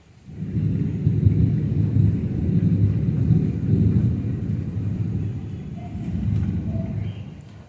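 Thunder rolling: a long, deep rumble that swells suddenly just after the start, holds for about seven seconds and fades away near the end.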